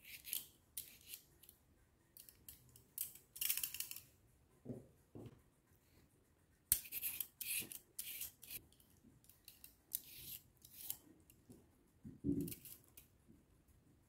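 Julienne peeler drawn along a fresh cucumber, cutting it into thin strips: a dozen or so short, crisp scraping strokes at irregular spacing. A few soft low knocks of handling come in between.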